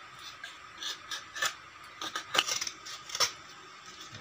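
A thin homemade knife blade, cut from an old wood-saw blade, carving into a block of solid wood: several short, irregular scraping cuts with small clicks.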